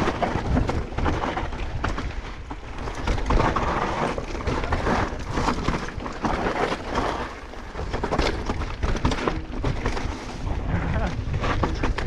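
Mountain bike descending a rough downhill trail: wind rumbling on the microphone, tyres rolling over dirt and rock, and the bike clattering and rattling over the bumps.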